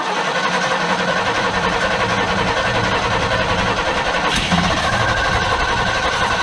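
1974 Ford F-350's 390 V8 being cranked on the starter as it tries to start after years of sitting. The sound is loud and steady, with no break.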